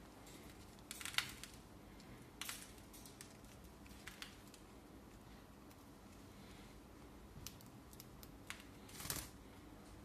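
Cockatiels feeding at a clear plastic seed feeder: irregular sharp clicks and crackles of beaks cracking seed and tapping the plastic, the loudest about a second in and near the end.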